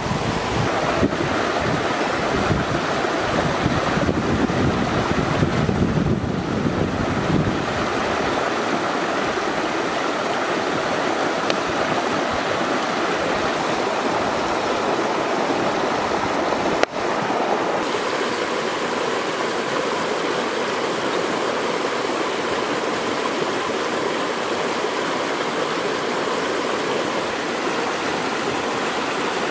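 Steady rush of a rocky stream flowing, with wind buffeting the microphone for the first several seconds. A single sharp click comes about two-thirds of the way through.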